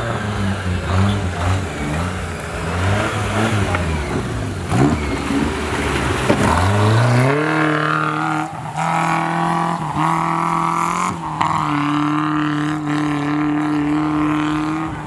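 An off-road 4x4's engine revving up and down several times, then climbing to high revs about seven seconds in and held there under load, dipping briefly a couple of times.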